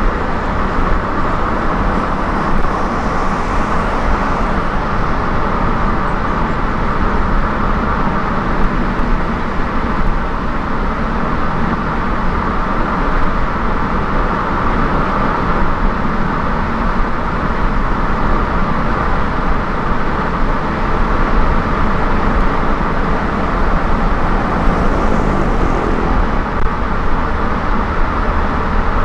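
Steady road noise of a car travelling at highway speed: tyre roar and engine hum with no breaks, with a faint hiss swelling briefly about three seconds in and again near the end.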